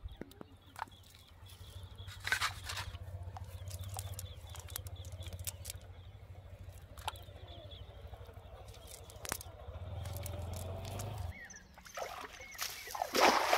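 A cast net being handled on wet mud: scattered small clicks and rustles, with a louder rustle a couple of seconds in, over a low steady rumble that cuts off suddenly near the end. Then water splashes as someone wades into shallow water.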